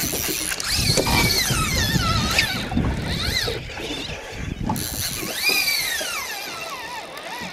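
Fly reel's drag screaming as a hooked tuna runs and strips line off the spool: a whine that rises and falls in pitch with the speed of the run, over a low rumble.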